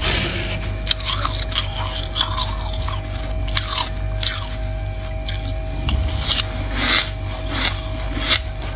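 Freezer frost being bitten and chewed close to the microphone: irregular, squeaky crunches over a steady faint hum.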